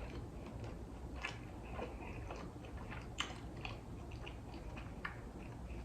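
Faint close-up chewing of sushi, with small wet mouth clicks scattered through it.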